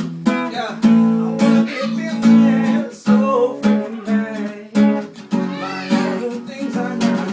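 Acoustic guitar being strummed.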